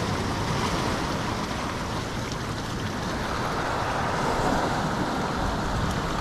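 Sea surf washing and foaming over coastal rocks: a steady rushing noise that swells a little past the middle.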